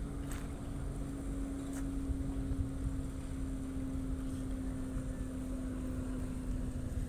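Ro-ro passenger ferry's engines running close offshore, a steady low hum and rumble, with wind buffeting the microphone.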